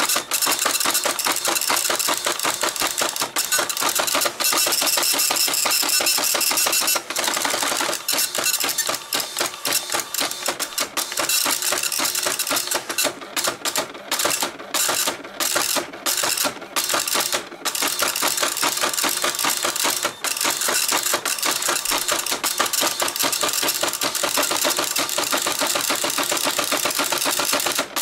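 Epson LQ-300+II 24-pin dot matrix printer printing text in high-speed draft mode: a loud, dense rattle of the print head firing as it sweeps line after line, broken by several brief pauses in the middle.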